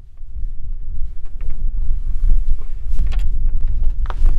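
Steady low rumble of wind buffeting the microphone, with a few faint clicks and rustles of wires being handled in a metal electrical box.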